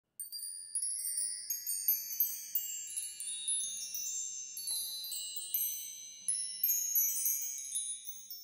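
High, tinkling chime tones: many overlapping notes rung in quick, irregular succession, each ringing on, fading away near the end.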